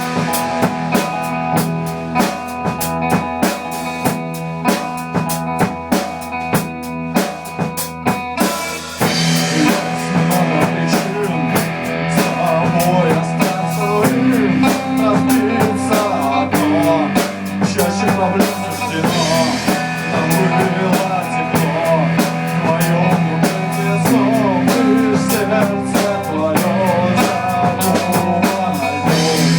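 Rock music with drums and guitar and a steady beat; the drums are sparser for the first eight seconds or so, then the full band comes in with a busier melody.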